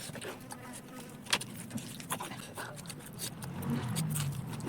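Close-miked chewing of crunchy food: scattered short crunches and wet clicks, over a steady low hum that swells briefly near the end.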